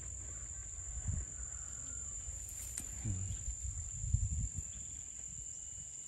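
An insect trilling as one unbroken high-pitched tone, over a low rumble with a few soft low knocks.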